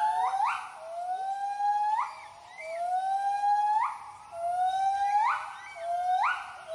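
White-handed gibbon giving its territorial hooting call. It is a series of loud hoots, each sliding slowly upward and ending in a sharp leap in pitch, about one a second, with the notes growing shorter and quicker toward the end.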